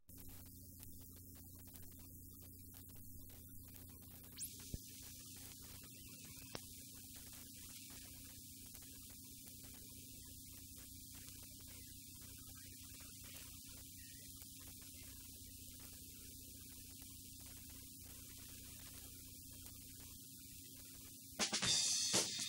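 Steady mains hum with tape hiss on an old videotape soundtrack, broken by a few faint clicks and a brief rising whistle about four seconds in. Near the end, music with drums and cymbals starts suddenly and loudly.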